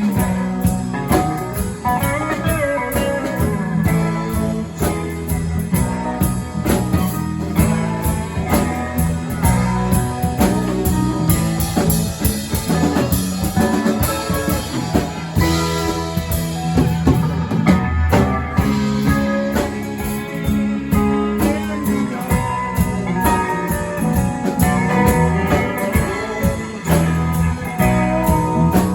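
Music with a steady beat and held pitched notes.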